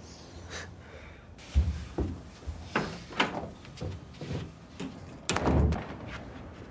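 A series of knocks and thumps, the loudest a heavy thump about five and a half seconds in.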